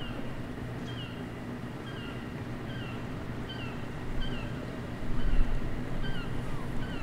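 Gulls calling in a steady series of short falling cries, about two a second, over a low steady hum. A deeper low rumble swells about five seconds in.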